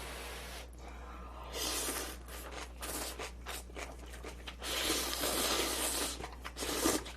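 Close-miked eating noises: a run of short, noisy bursts, then a longer one about five seconds in.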